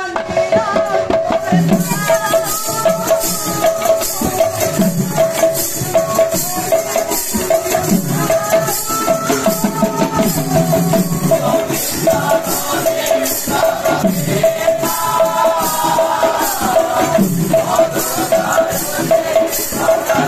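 Lively folk devotional music led by a hand-played two-headed barrel drum, with deep drum strokes under fast jingling percussion and a short ringing note repeated evenly on the beat. Voices sing lines at intervals over the rhythm.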